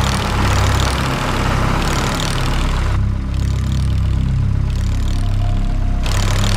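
Diesel tractor engine running steadily, with a steady low rumble.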